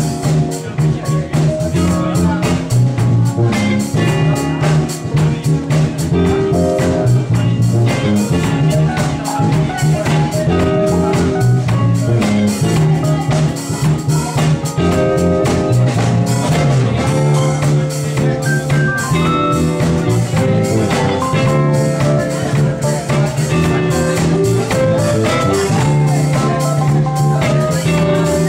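Live acid jazz-funk band playing an instrumental passage: drum kit keeping a steady groove under a moving electric bass line and electric guitar.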